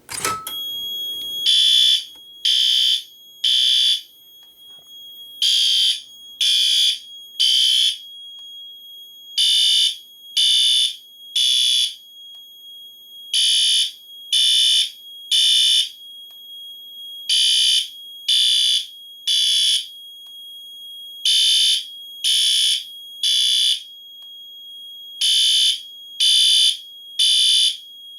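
A click as a fire alarm pull station is pulled, then two System Sensor L-series horn strobes sound in the temporal code-3 evacuation pattern: three half-second blasts about a second apart, a pause, and again, seven rounds in all. A steady high tone runs underneath the blasts.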